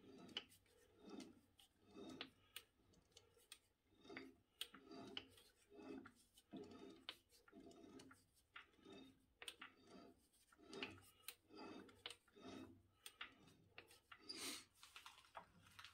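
Faint, regular scraping as a lathe tool tip scribes a line around a steel axle blank while the chuck is turned by hand, about three short strokes every two seconds, with small clicks.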